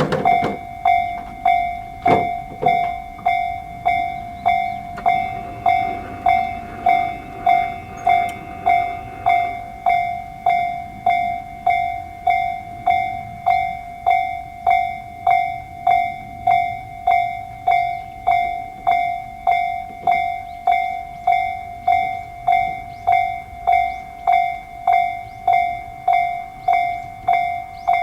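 Japanese railway level-crossing electronic warning bell, the Tobu Railway 'sound C' type in its slow-tempo version, dinging steadily at about two strikes a second.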